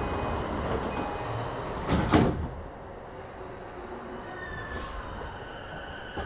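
Passenger sliding doors of a JR E233-5000 series electric train closing, shutting with a loud double thump about two seconds in. The sound then falls to a quieter steady hum inside the car, and a faint steady whine starts later on.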